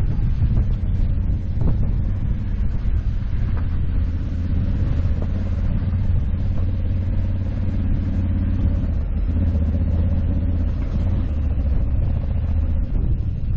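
2021 Honda Africa Twin 1100 DCT's parallel-twin engine running steadily while riding on a gravel road, with tyre and wind noise over it and a few brief clicks in the first couple of seconds.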